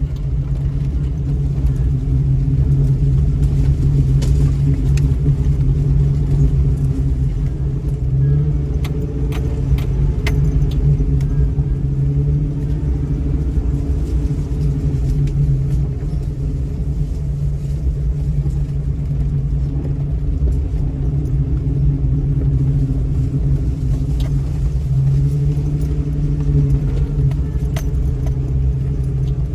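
Jeep Cherokee engine running at low speed as it crawls down a rough dirt trail: a steady low hum, with scattered clicks and rattles, most of them in the first third.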